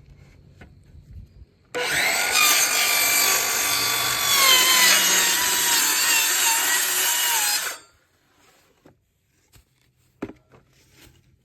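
Electric power saw cutting through a piece of wood for about six seconds. It starts suddenly, its whine sags slightly in pitch under the load of the cut, and it stops abruptly.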